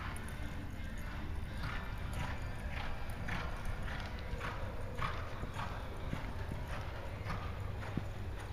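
A paint reining horse loping on soft arena dirt: rhythmic hoofbeats at about two a second, in an even stride beat over a steady low rumble.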